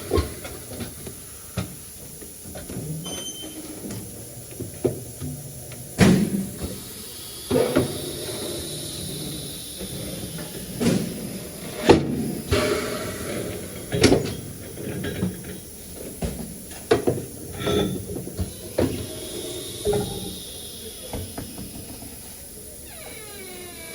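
Tyre-shop work sounds: scattered knocks and clanks, one every second or two, over a steady hiss.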